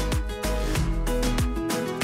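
Instrumental background music with a steady beat of about three hits a second.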